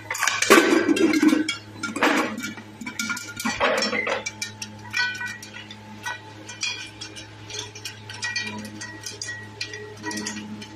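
Aluminium pressure cooker lid clanking as it is set on and closed over the pan in the first few seconds. Then popcorn kernels pop inside the closed cooker: irregular pops and clinks against the metal lid.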